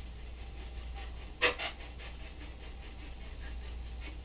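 A dog's single short yelp about a second and a half in, over a steady low hum.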